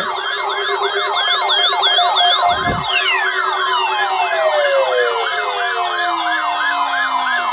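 Several weather alert radio receivers sounding their alarms, set off by the NOAA Weather Radio weekly test signal. A siren-like warble repeats about three times a second, and further alarm tones sweeping down in pitch join in about three seconds in.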